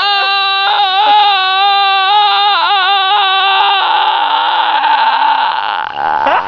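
A girl's deliberately weird vocal sound: one long, loud, cry-like note held at a steady pitch for about four seconds, then going rougher and sliding lower before breaking off near the end.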